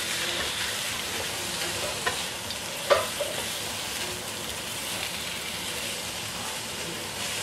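Squid pieces sizzling in a hot nonstick wok while a spatula stirs and scrapes them, a steady hiss, with two sharp knocks of the spatula on the pan about two and three seconds in, the second louder.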